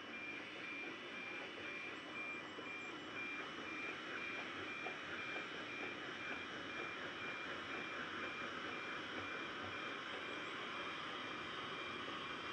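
Distant narrow-gauge steam locomotive working a train, a continuous rush of exhaust that grows a little louder in the second half. A repeated beeping at a single pitch fades out within the first few seconds.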